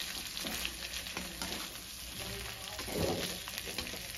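A perforated metal spatula scraping and stirring pieces of semolina dhokla around a metal kadhai in irregular strokes, over a light sizzle of the oil tempering.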